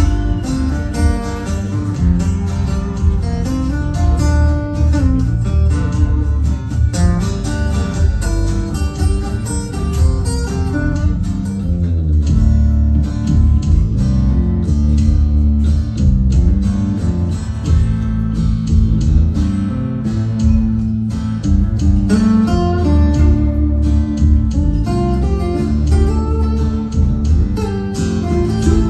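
Live band music: acoustic guitars strummed and picked over an electric bass line.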